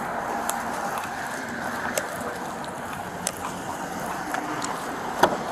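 Steady outdoor background noise picked up by a body-worn camera as the wearer walks, with a few light clicks and a sharp clack near the end.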